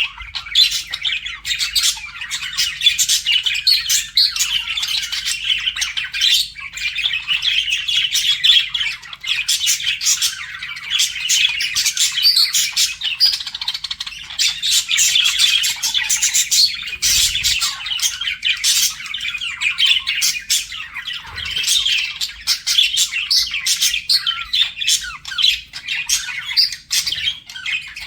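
Budgerigars chattering and warbling without pause, a dense mix of fast chirps, clicks and squawks.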